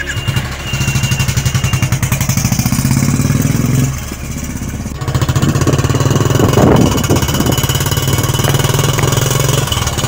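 Motorcycle engine pulling away, its pitch rising for a few seconds and then easing off. After a break about halfway, it runs steadily under riding, with wind buffeting the microphone.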